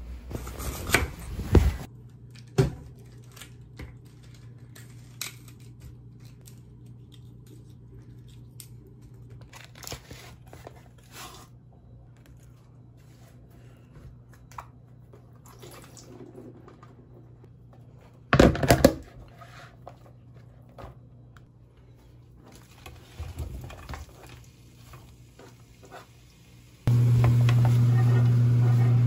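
Household handling sounds: rustling of bedding, then plastic packaging crinkling and tearing, with scattered taps and a short burst of loud rattling about two-thirds of the way through. Near the end, a loud steady electric hum from a kitchen appliance starts abruptly.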